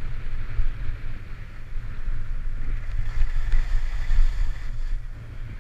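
Wind buffeting the microphone of a camera worn by a downhill skier, with the skis hissing and scraping over groomed snow; it eases a little near the end.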